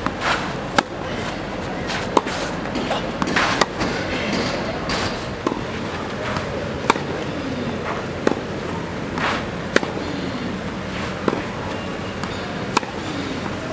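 Tennis rally: a ball struck by rackets, a sharp pop about every one and a half seconds, with a few longer scuffing noises between some of the shots.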